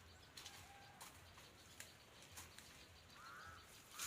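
Faint outdoor quiet with scattered light clicks and crackles, then about three seconds in a bird starts calling: short, arched calls repeated about once a second.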